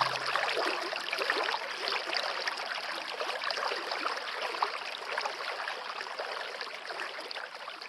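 Running water of a small stream, a steady trickling and splashing rush that slowly fades toward the end. The last low notes of music stop just after the start.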